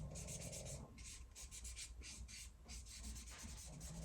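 Marker scribbling on paper in quick back-and-forth strokes, being tried out to see whether it still writes.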